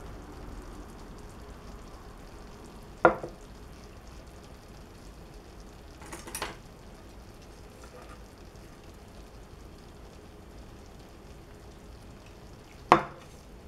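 Ceramic plate and chopsticks knocking on a wooden table and against each other: a sharp knock about three seconds in as the plate is set down, a clatter around six seconds as the chopsticks are picked up from their rest, and a loud clack near the end. A faint steady hiss runs underneath.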